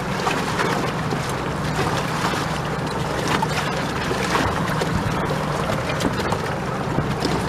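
A boat's engine humming steadily under way, with water rushing and wind on the microphone, as a disabled jet boat is towed.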